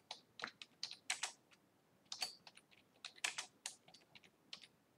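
Typing on a computer keyboard: an uneven run of quick keystrokes with short pauses between clusters.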